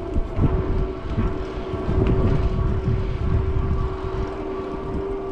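Electric Bike Company Model E e-bike motor whining steadily under pedal assist, its pitch stepping up slightly near the start. Heavy wind buffets the microphone throughout.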